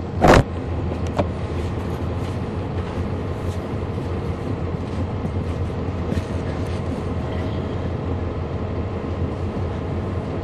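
Cummins ISL9 inline-six diesel of a 2011 NABI 40-SFW transit bus running steadily, heard from on board the bus. A short loud clunk sounds near the start.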